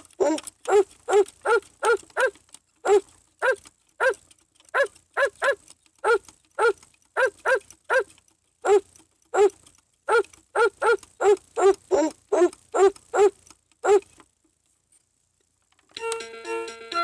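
VTech Explore and Learn Helicopter toy playing a tune through its small speaker as a string of short dog-bark-like yips, each note bending in pitch. The tune stops about fourteen seconds in, and after a short silence a plain electronic melody starts near the end.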